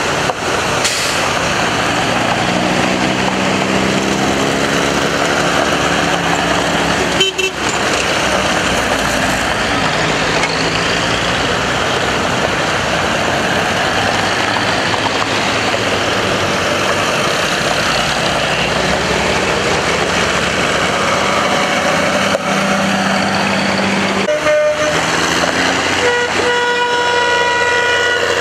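Old military vehicles, jeeps and a six-wheel army truck, driving slowly past one after another with their engines running; one engine revs up a few seconds in. A steady rush of wind noise lies over it all. Near the end a vehicle horn gives a short toot, then a longer held note.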